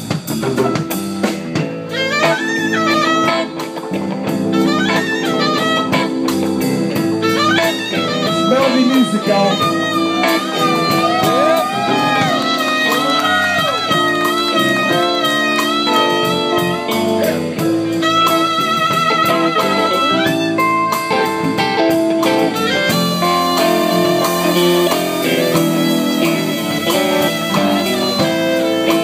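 Live blues band playing a slow blues, with a harmonica solo of long, wavering held notes and bends over electric guitar and drums.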